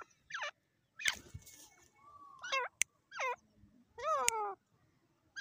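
Grey francolin (dakhni teetar) calling: a run of short, nasal notes that fall in pitch, about one a second, with a sharp click about three seconds in.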